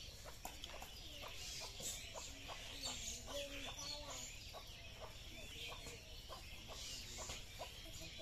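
Domestic chickens clucking quietly, with scattered light clicks throughout.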